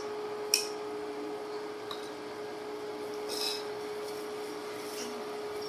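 Steady hum from an induction cooker heating a hot pot, with a few light clicks and clinks of chopsticks and utensils against dishes.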